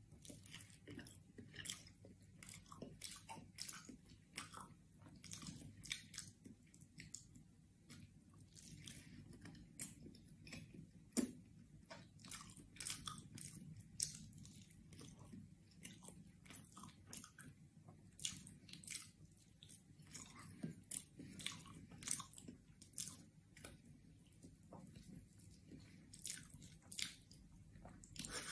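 A person chewing sticky sweet potato close to the microphone: faint, irregular wet mouth clicks and smacks, several a second.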